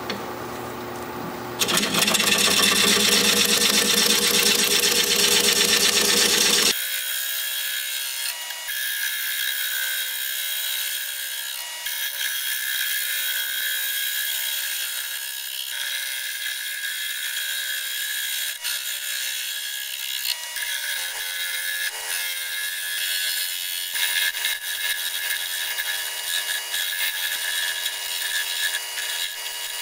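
Turning tool cutting the outside of a spinning live oak bowl blank on a wood lathe: a steady scraping hiss of the cut over the running lathe. About seven seconds in, the sound turns thinner and higher and stays that way.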